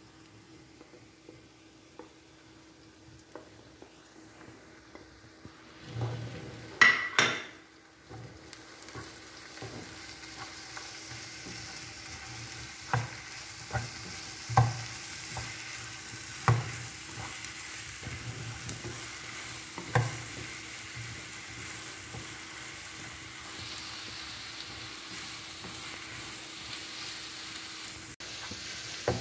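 Onions frying in oil and ghee in a pan. About six seconds in, a loud scrape and clatter as crushed ginger, garlic and green chilli are tipped in from a plate. After that a steady sizzle, with a wooden spatula stirring and now and then knocking against the pan.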